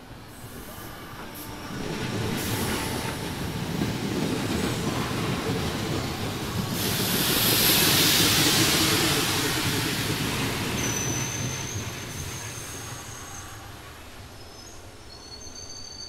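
An electric commuter train runs along the station track. Its rumble builds, peaks about halfway through with a loud hiss, then fades away. Thin high-pitched wheel squeal comes in during the second half.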